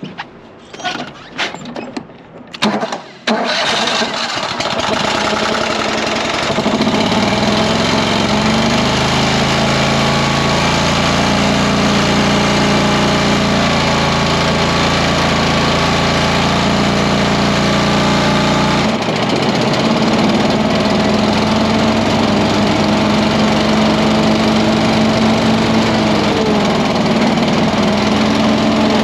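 Zero-turn mower engine cranked over by the starter in short bursts, catching after about three seconds and running. About six seconds in it speeds up, rising in pitch to a steady high speed, then drops back about two-thirds of the way through and keeps running. The engine has an aftermarket carburetor without an accelerator pump, which the repairman blames for the hard starting and lack of power.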